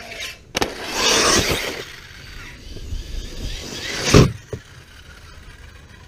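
Arrma Talion 6S electric RC truck driving hard, with a loud rushing noise about a second in, then a sharp, loud clatter a little after four seconds as it hits the launch ramp and takes off.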